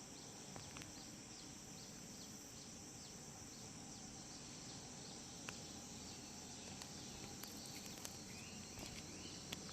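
Faint, steady insect chirring, with a few soft clicks.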